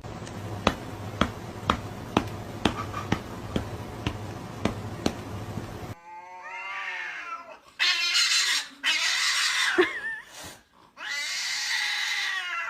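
A run of sharp taps, about two a second, over a low hum. About six seconds in this gives way to a cat caterwauling: long wavering yowls and harsh, noisy cries with short breaks, the sound of cats squaring off to fight.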